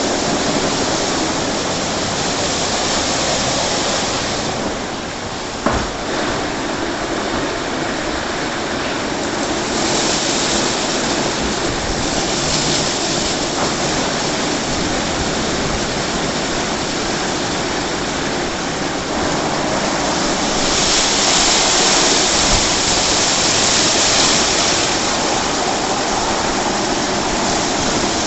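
WashTec SoftCare 2 Pro rollover car wash running: spinning brushes scrubbing and water jets spraying, a steady loud rushing. There is one short knock about six seconds in, and the spray grows louder and hissier about twenty seconds in for a few seconds.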